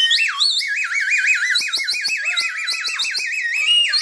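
Chupa Chups Melody Pop lollipop whistle being blown hard, one high warbling tone whose pitch wobbles rapidly up and down several times a second, with a few short clicks about halfway through.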